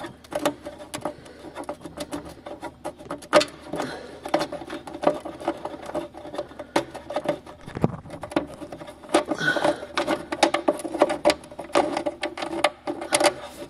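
Fender trim being pulled and worked loose by hand from a Jeep CJ-7's body, with many irregular clicks, knocks and creaks.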